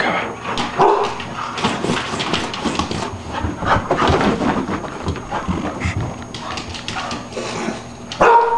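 An excited dog whining and giving short barks, amid a busy run of knocks and scuffles.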